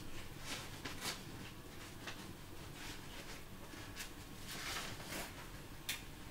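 Faint rustling of cloth vestments and paper, with a few light handling knocks and a sharp click near the end.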